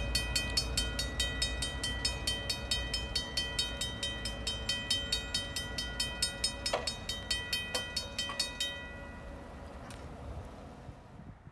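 Railway crossing warning bell ringing rapidly, about three strikes a second, over the fading low rumble of a train that has just passed. The bell cuts off about nine seconds in, as the crossing gates go up and the warning ends.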